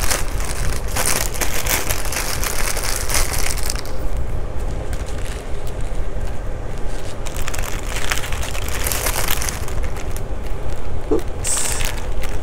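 Small plastic zip bags of diamond-painting drills crinkling and rustling as they are handled and packed away. The rustling eases for a few seconds midway, then picks up again, over a steady low hum.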